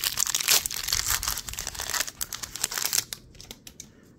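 Foil wrapper of a Pokémon trading card booster pack crinkling and tearing as it is opened. It stops about three seconds in, leaving a few light clicks of cards being handled.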